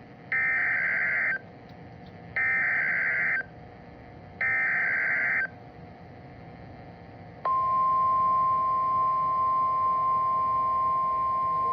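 Emergency Alert System tornado warning: three one-second bursts of SAME digital header data, a second apart, then about 7.5 s in a steady single-pitch alert tone of the kind NOAA Weather Radio sounds for a warning.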